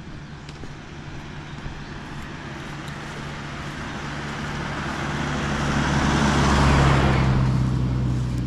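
A motor vehicle approaching and passing: a low engine drone with tyre noise that builds steadily to a peak about seven seconds in, then eases off.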